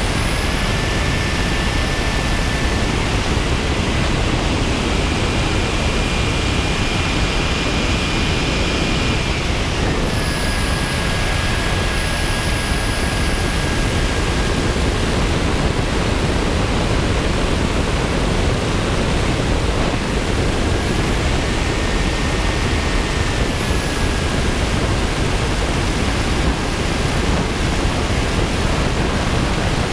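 RC model jet in flight heard from onboard: a steady rush of wind over the microphone with a high engine whine. The whine steps up in pitch over the first few seconds, drops about ten seconds in, then rises and falls again about two-thirds of the way through as the throttle changes.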